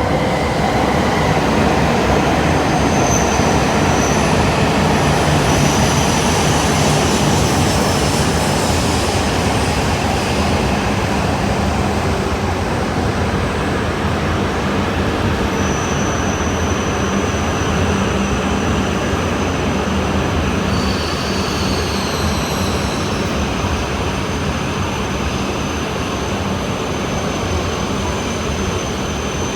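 Shinkansen bullet train moving along the station platform: a steady, loud rumble of wheels and running gear, with thin high whining tones over it and a few short gliding tones about twenty-one seconds in.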